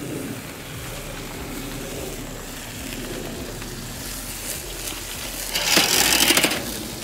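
Metal grill spatulas scraping and sliding across the cooking grate of a Weber kettle grill as a meatloaf on parchment is turned, with a louder burst of scraping near the end.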